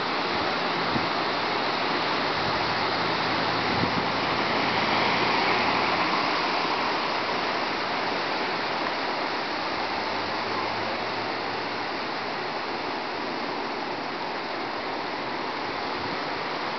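Hurricane wind gusting through the leaves of large trees: a steady rushing that swells about five seconds in, then eases off slightly.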